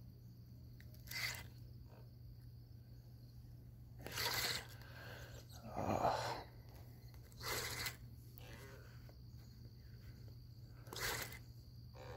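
Handling noise from an angler playing a hooked carp on a spinning rod: hands, sleeve and rod rubbing and scraping close to the microphone in five short bursts, the loudest about six seconds in, over a steady low hum.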